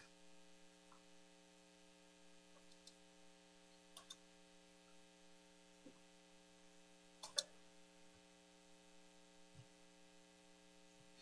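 Near silence: a faint steady electrical hum, with a few faint clicks, the clearest about seven seconds in.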